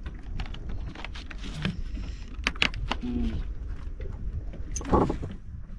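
Fishing gear being handled on an outrigger boat: scattered sharp clicks and knocks as a float line is set over the side, over a steady low rumble of wind and water.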